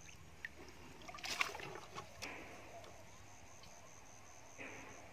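Faint sloshing of shallow water stirred by wading, with a short cluster of knocks and splashes about a second and a half in.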